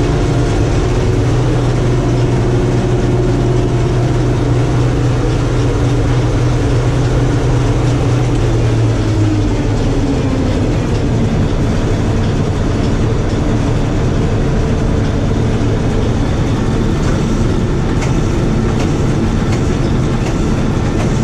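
Bizon combine harvester running with its header reel and auger turning, heard from inside the cab as a steady mechanical din. A low steady hum drops away about nine seconds in as a tone slides down in pitch.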